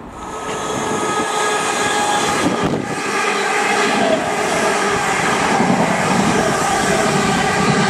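Electric multiple unit running past close beside the platform: a loud, steady rush of wheels on rail with a steady whine over it.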